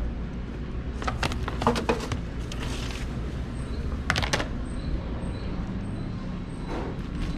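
Plastic serving trays clacking together two or three times as one is set down on the tray stack above a trash bin, about four seconds in. Several other sharp clicks and knocks come a second or two earlier, over a steady low room hum.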